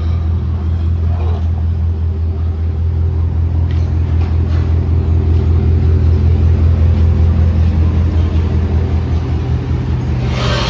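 GMC truck's engine and exhaust running with a steady deep drone that swells a little in the middle, its exhaust leak just fixed. A louder rush of noise comes in near the end.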